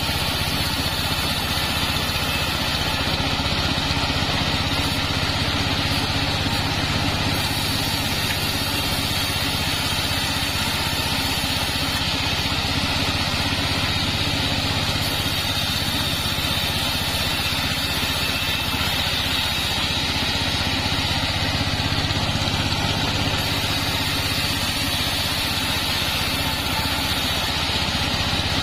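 Engine-driven mobile bandsaw mill running steadily while sengon planks are ripped lengthwise on it, with a constant low engine drone under the noise of the blade cutting.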